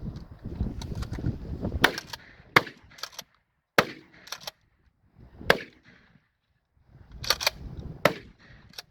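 Remington 870 Marine Magnum 12-gauge pump-action shotgun fired repeatedly, about six sharp shots roughly a second or two apart, with smaller clacks in between.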